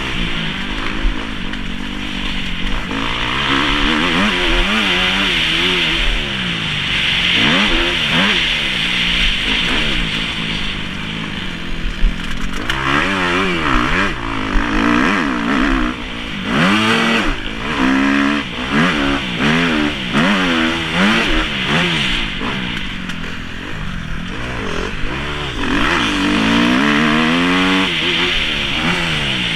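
Kawasaki KX250F's four-stroke single-cylinder engine revving up and dropping back over and over through the gears, with wind noise over the microphone. A few sharp knocks, the loudest about twelve seconds in.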